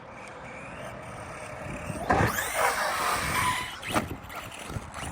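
Brushless electric motor of an ARRMA Outcast 4S RC truck whining faintly, then, about two seconds in, a loud sweeping whine as it is driven hard off the jump ramp. A sharp knock follows about four seconds in, with a smaller one near the end, as the truck comes down.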